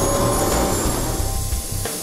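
Rushing turbine noise of a JetCat PHT-3 turbine-powered RC helicopter fading away about a second in, over background music with a steady bass beat.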